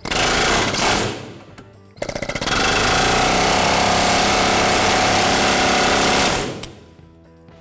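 Pneumatic air chisel with a flat steel chisel bit hammering on the tip of a rear shock's lower mounting bolt that is rusted solid into the shock bushing, trying to drive it out. A short burst of about a second, a pause, then a stuttering start into about four seconds of steady rapid hammering that stops near the end.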